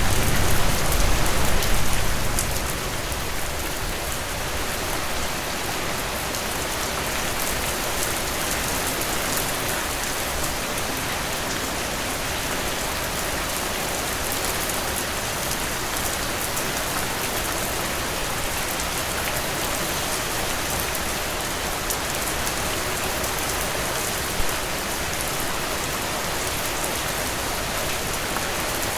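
Heavy rain pouring steadily on a surface, a dense, even hiss of drops. A low rumble under the rain in the first two seconds fades away, and a single brief louder tick stands out about 24 seconds in.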